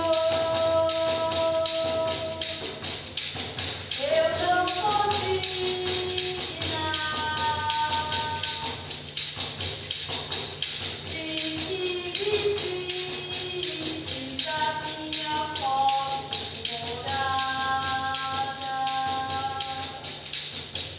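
Live singing in long, held notes that slide between pitches, over a tambourine shaken in a steady, rapid jingle.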